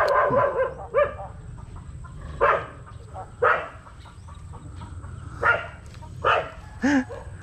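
Short animal calls repeated about seven times at irregular intervals of roughly a second, each brief and pitched.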